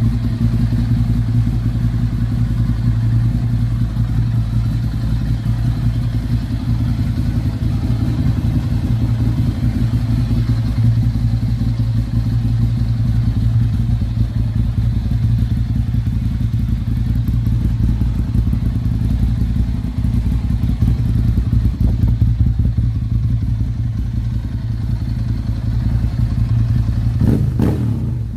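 Ducati Monster 796's air-cooled L-twin engine idling steadily, with a brief rev near the end.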